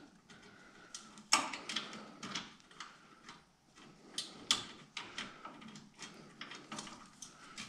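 Scattered small metallic clicks and taps with light rustling: hands fitting a bolt into the lower mounting bracket of an aftermarket intercooler. The sharpest tap comes about a second and a half in, and a few more follow.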